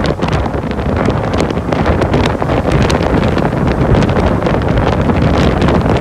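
Storm-force wind blasting straight across a phone microphone: a loud, continuous rumbling rush with constant crackle as the gusts hit the mic.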